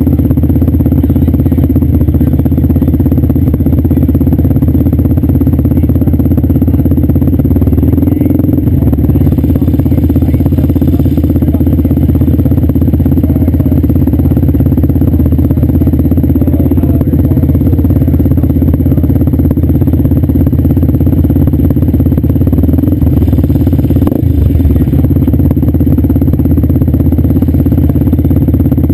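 Quad (ATV) engine idling steadily and loudly, close to the microphone, with no revving.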